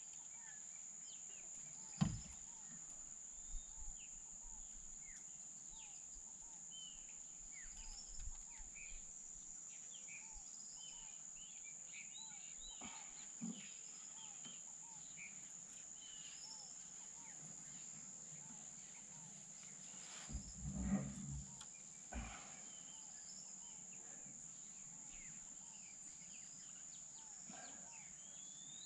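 Quiet outdoor ambience of a steady high insect drone with many short bird chirps scattered through it. A few soft knocks and bumps break in, about two seconds in, near the middle, and a small cluster around twenty-one seconds in.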